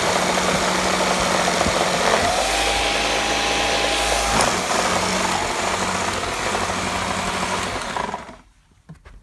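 Gtech AirRam K9 cordless upright vacuum cleaner running, its motor and brush bar making a loud, steady, rough noise with a thin whine for a couple of seconds in the middle. It cuts out about eight seconds in, leaving a few light clicks. The owner says something is broken by the motor drive belt.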